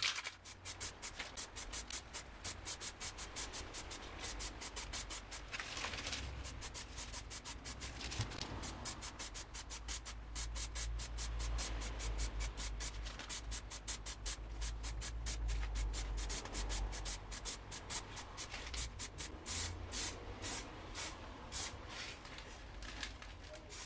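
Aerosol spray-paint can hissing in rapid short bursts, several a second, as grey paint is sprayed on.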